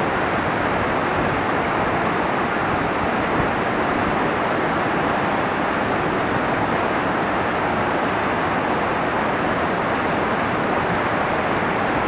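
Krimml Waterfalls, Austria's highest, pouring down onto rock: a loud, steady rush of falling water.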